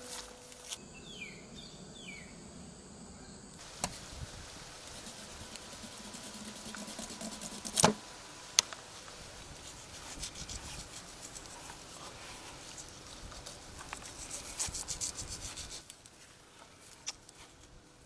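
Knife cutting and scraping through a raw mutton carcass on a steel tray: a run of rubbing, rasping strokes, with one sharp knock about eight seconds in.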